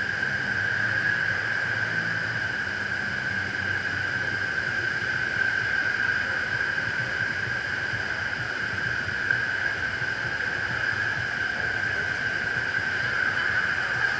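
Steady rush of water flowing through a water slide's runout channel, heard close up as an unbroken hiss with a high held tone in it.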